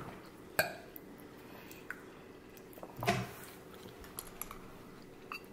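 Someone eating fried rice: quiet chewing, with a few sharp clicks of a utensil against the dish. The loudest clicks come a little past half a second in and about three seconds in.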